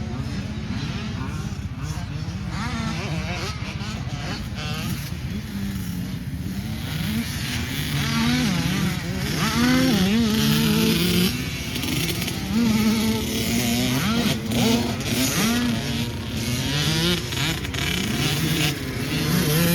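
Racing Mini's engine under hard throttle, over a steady rumble and rushing noise. It runs steadier for the first several seconds, then from about eight seconds in revs up and drops back again and again.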